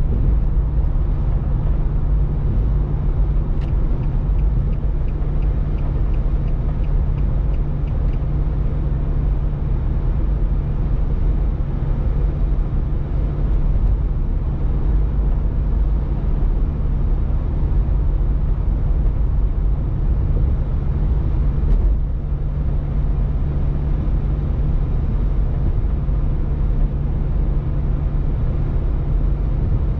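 Steady drone of a car travelling at highway speed, heard from inside the cabin: tyre and road noise over a low engine hum. A faint rapid ticking runs for a few seconds near the start.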